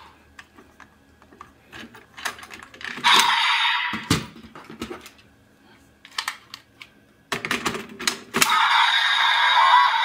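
Plastic clicks and clacks of a DX Kamen Rider Geats toy belt and buckle being handled and worked, with bursts of the toy's electronic sound effects from its small speaker about three seconds in and again near the end.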